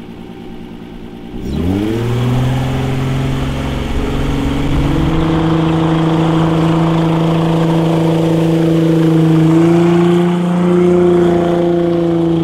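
Volkswagen 2.8-litre VR6 car engine swapped into a small runabout boat, revving up quickly about a second and a half in, then running steadily at high revs with the boat under way. Its pitch steps up slightly near the end.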